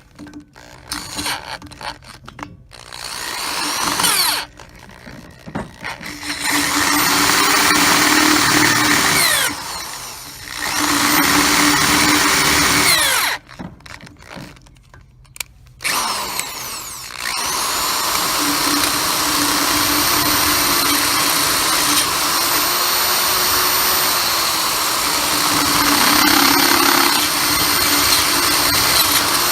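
Electric drill drilling out the stripped M8 threads of a motorcycle's steel foot-peg mount with a Time-Cert kit drill bit. It starts with a few short bursts, then runs in longer stretches, three times. Each stretch starts with the motor speeding up, and the last one runs about twelve seconds.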